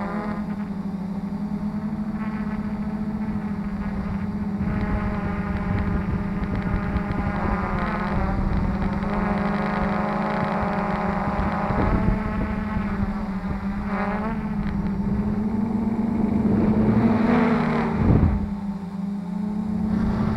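Quadcopter drone's motors and propellers, picked up by its own onboard camera: a steady whirring hum with overtones that shifts in pitch as the motor speed changes, rising briefly near the end and then dropping sharply. Wind rumbles on the microphone underneath.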